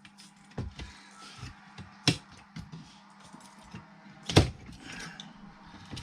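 Scattered clicks and knocks of hard parts being handled and set down while a car radio unit is taken apart, with a sharp knock about two seconds in and a louder one a little over four seconds in.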